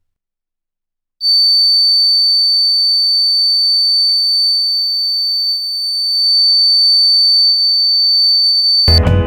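Homemade fire alarm going off: one steady, high-pitched electronic tone that starts about a second in and cuts off near the end, where music begins.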